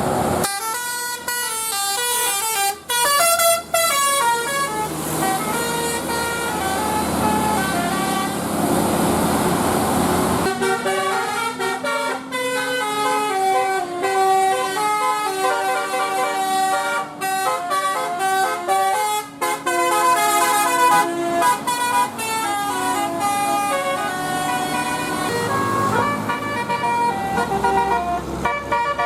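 Bus 'telolet basuri' musical air horn playing a fast tune of quickly stepping notes. From about ten seconds in, a long low tone holds underneath the melody.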